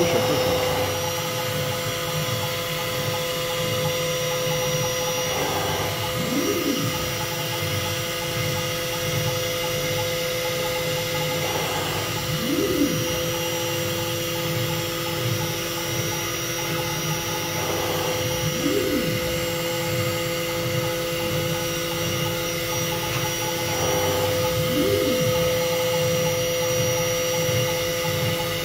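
Homemade 4-axis CNC router running: the spindle gives a steady high whine, and about every six seconds an axis drive motor whines up in pitch and back down as the machine makes a move. A second, lower steady tone joins about halfway.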